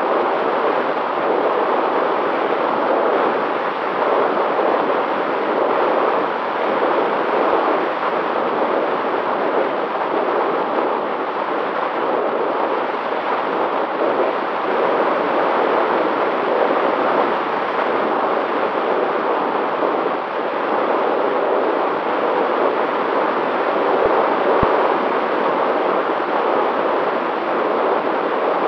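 Steady rush of airflow over the onboard camera microphone of a long-range FPV aircraft in cruising flight, with a faint steady whine from the electric motor and propeller underneath.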